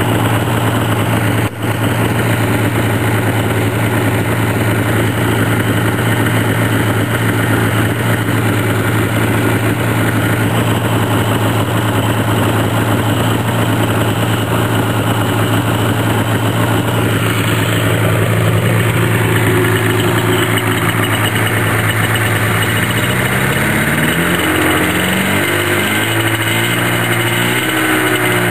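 Freshly rebuilt two-stroke engine of a Polaris TX-L snowmobile idling steadily at about 1,500 rpm, then revved up and down a few times near the end.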